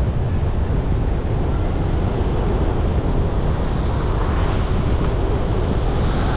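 Steady low rumble of road noise with tyres hissing on wet pavement. A higher hiss swells louder in the second half, like spray from wet tyres.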